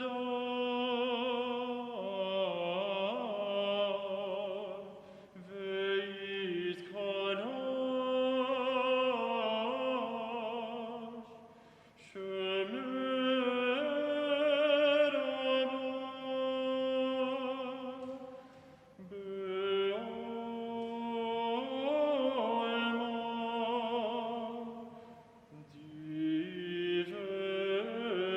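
Voices singing a slow sacred chant or hymn in long phrases of about six seconds, with short breaks between phrases.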